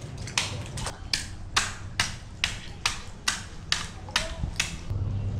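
Oyster shells being smashed to bait the water: a sharp knock about twice a second, about a dozen in all, stopping near the end. A low steady hum comes up as the knocking stops.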